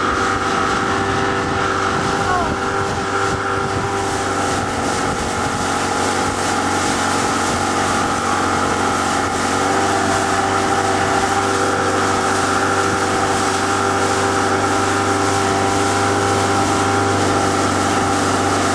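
Outboard motor running steadily at speed, with the rushing water of the boat's wake.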